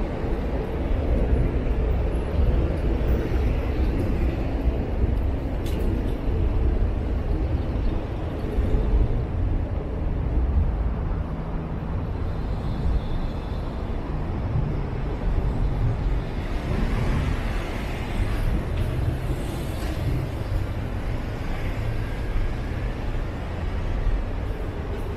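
City street ambience: a steady low rumble of road traffic going by.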